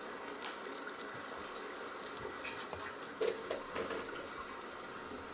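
Salted dried fish sizzling faintly on a smokeless grill, a steady hiss with scattered small crackles and pops, and a couple of dull taps a little past halfway.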